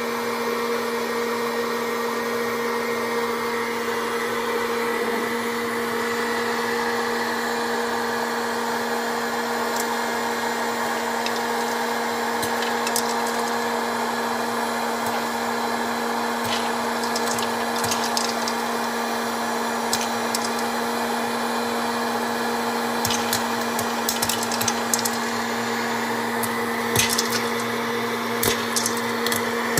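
Electric hot-air popcorn popper running: a steady fan-and-motor hum with an even whoosh of hot air. About ten seconds in, kernels begin to pop with sharp clicks, which come more and more often near the end as popped corn is blown out into the bowl.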